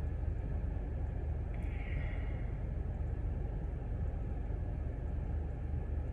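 Steady low rumbling hum, with a brief soft hiss about two seconds in.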